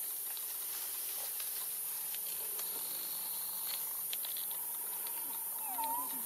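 Steady high hiss of outdoor forest ambience, with scattered faint ticks and a short squeak near the end.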